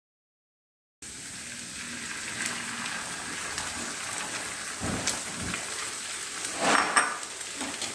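Raw eggs frying in hot oil in a non-stick frying pan: a steady sizzle starts about a second in and slowly grows. A couple of soft knocks come about five seconds in, and a louder scrape of a spatula against the pan comes near the end.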